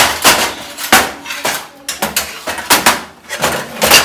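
Removable kitchen-drawer cutlery tray being handled and set back into its drawer: a run of sharp knocks and clattering rattles.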